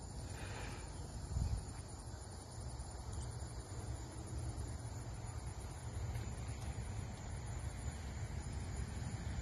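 Insects chirring in a fast, even, high-pitched pulse throughout, over a steady low rumble, with one louder low thump about a second and a half in.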